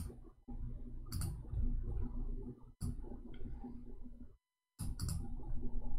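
About five sharp clicks, spaced irregularly, over a low rumbling microphone noise that cuts out completely twice for a fraction of a second.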